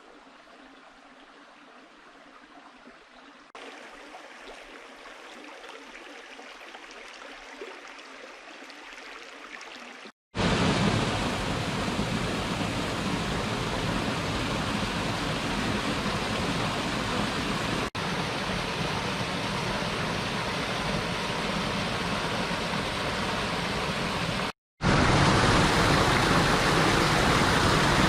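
Stream water flowing in a steady rush. It is faint at first, then after a brief dropout about ten seconds in it comes back much louder, and it cuts out briefly again near the end before rising once more, as separate recordings are spliced together.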